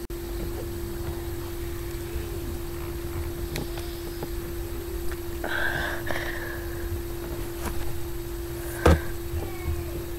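A steady electrical hum runs throughout. About halfway through there is a brief rustle of a hand brushing close to the microphone, and near the end a single sharp knock, the loudest sound.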